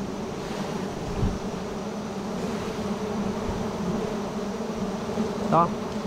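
Steady hum of a large honeybee swarm around a big wild hive, many bees buzzing at once.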